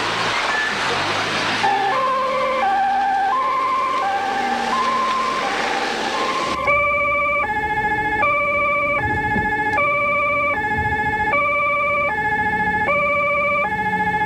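German police two-tone siren (Martinshorn) sounding its alternating high and low notes, each note a little over half a second long. It comes in fainter about two seconds in and grows much louder about six and a half seconds in.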